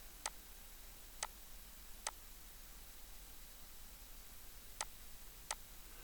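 Five faint computer mouse clicks, spaced unevenly, over a low background hiss.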